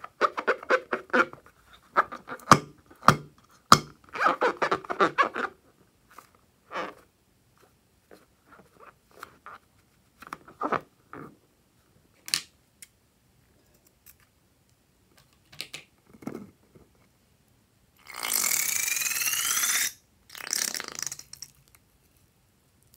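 Rubber balloon squeaking and crackling as fingers squeeze and rub it, with scattered small clicks. Near the end, a loud hiss with a rising squeal lasts about two seconds, then a shorter hiss follows, as air and liquid slime rush out of the opened balloon neck.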